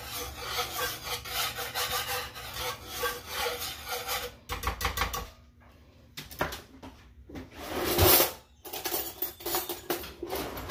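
Metal wire whisk scraping around a skillet of cream sauce in quick, continuous strokes, stopping about four and a half seconds in. Scattered knocks and utensil clatter follow, with a sharp knock about eight seconds in.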